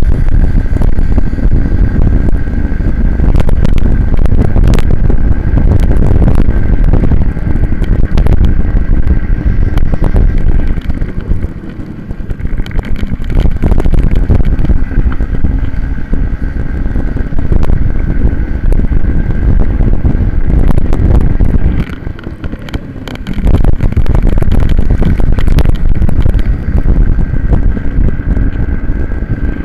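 Minibike racing onboard: heavy wind buffeting on the bike-mounted microphone over the steady drone of the small racing engine at speed. The noise dips briefly twice, about twelve and twenty-two seconds in.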